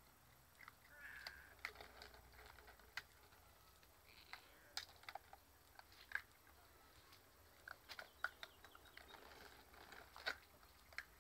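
Puppies eating crackers: faint, scattered crunches and sharp clicks at irregular intervals, with the plastic cracker jar being handled.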